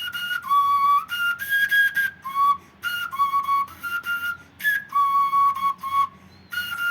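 Homemade cane whistle, a replica of a pre-Hispanic three-tone whistle, blown in a simple three-tone melody: short clear notes of about half a second hopping between three pitches, with brief gaps between phrases.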